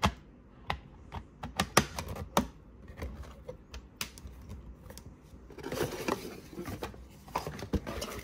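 Sharp plastic clicks and taps as a 3.5-inch hard disk is pressed into a clear plastic USB hard-disk enclosure, then rustling from a little past halfway.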